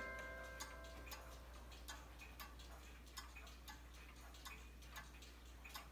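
Mechanical cuckoo clock movement ticking faintly and evenly, about two ticks a second. In the first second the last ringing notes of its tune fade away.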